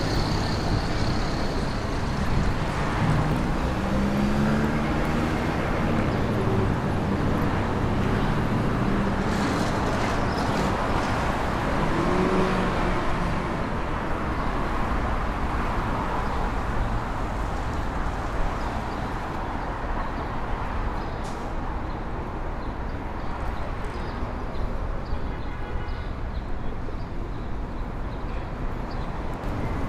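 City street traffic: a continuous hum of passing cars and other vehicles, with a nearer engine standing out from about 3 to 13 seconds in.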